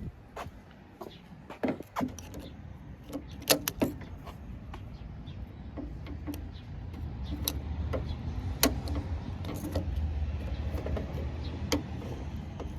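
Pliers working a part off inside a pickup truck door: scattered sharp metallic clicks and knocks, with a low rumble of handling underneath.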